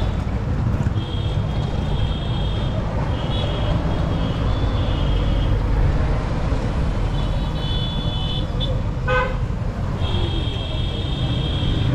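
Street traffic heard from a moving cycle rickshaw: a steady low road rumble, with high-pitched horn toots about four times, each held for a second or two, and a short, lower honk about nine seconds in.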